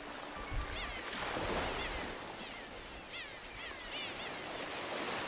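Sea waves washing in, swelling twice, with many short bird chirps over them and a brief low thump about half a second in.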